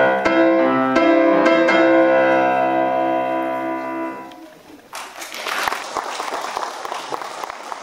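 Grand piano playing the closing bars of a piece: chords, then a quickly repeated note and a final chord that fades out about four seconds in. About five seconds in, the audience begins applauding.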